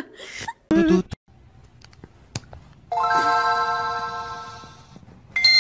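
A bell-like chime rings about three seconds in and slowly fades over about two seconds; a second, higher chime strikes near the end.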